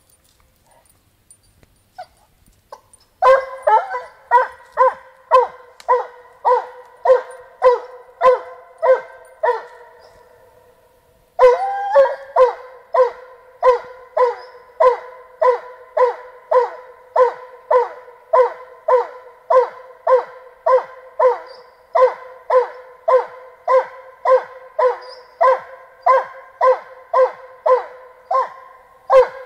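A Russian hound barking in a steady, regular series of about one and a half barks a second, starting about three seconds in, with a brief pause around ten seconds, then barking again without a break. It is a hunting hound giving voice after catching a scent.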